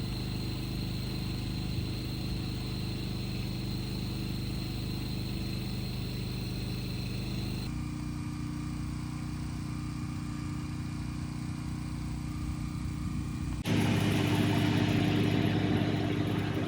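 Generator engine running steadily to power an air conditioner, with a constant low hum. The sound shifts abruptly about 8 seconds in and jumps louder about 14 seconds in, the loud-and-low fluctuation that comes as the air conditioner cycles on and off.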